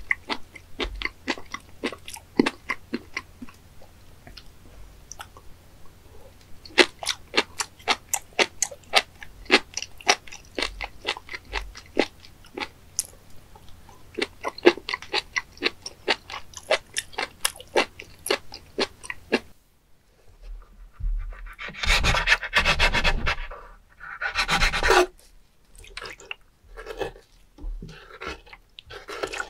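Close-mic chewing of raw spoon worm slices: a rapid, irregular run of crisp, clicky crunches and wet mouth sounds. About twenty seconds in, it gives way to a few louder, longer wet squelching sounds and clicks as a knife cuts into a whole live spoon worm on a wet wooden board.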